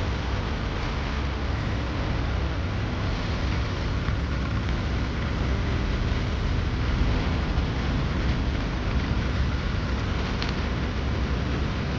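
Tractor engine running steadily, with a heavy low rumble and a constant rushing noise over it.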